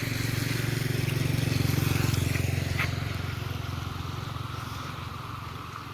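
A motor vehicle's engine passes by, growing louder to a peak about two seconds in and then fading away, with rain hissing throughout.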